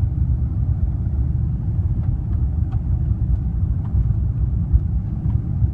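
Cabin noise of a jet airliner taxiing, heard from a window seat: a steady low rumble of the engines and the wheels rolling on the taxiway, with a few faint ticks.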